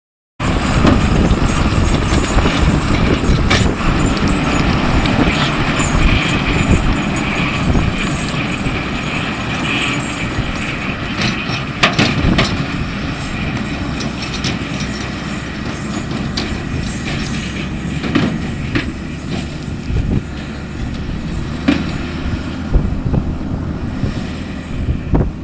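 JCB Fastrac 3190 tractor running under load as it drives a wide towed multi-section rotary mulcher over pasture: a steady, dense engine and blade din, with a few sharp knocks. It starts abruptly about half a second in and gets a little quieter in the second half.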